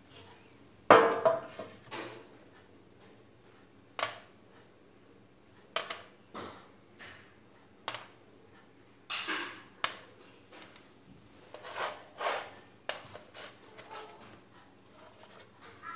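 Small fluted metal tart tins being set down one by one on a baking tray: a string of knocks and short scrapes every second or two, the loudest about a second in.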